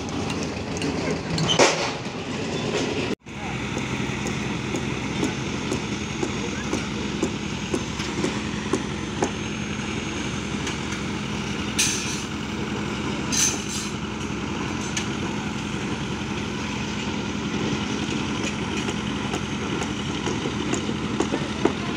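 Construction-site machinery: a heavy diesel engine running steadily with a low hum, with a few sharp metallic knocks along the way.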